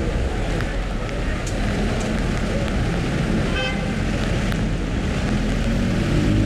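Road traffic noise on a rainy city street: a steady rumble of car engines and tyres, with one short car horn toot about halfway through.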